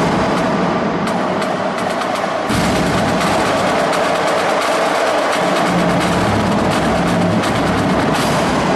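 Marching drumline of snare drums, tenor drums and bass drums playing a dense, continuous percussion passage, picking up again after a slightly softer moment about two and a half seconds in.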